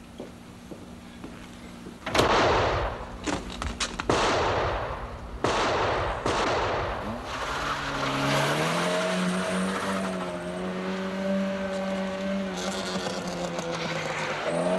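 A burst of about six gunshots with echo in the first half. Then a small car's engine revs up and runs on steadily as the black Volkswagen Golf of the attackers drives off.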